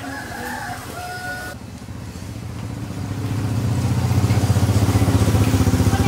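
A small engine running, growing louder over the first few seconds and then holding steady with a fast, even pulse.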